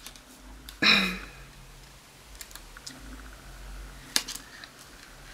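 Sticker sheets and planner pages being handled on a desk: light clicks and taps as stickers are peeled and pressed down. There is a brief vocal sound about a second in and a sharp click about four seconds in.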